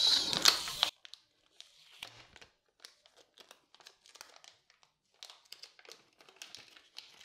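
Thin plastic anti-static bag crinkling as a solid-state drive is slid out of it and handled: louder for about the first second, then faint, scattered crackles.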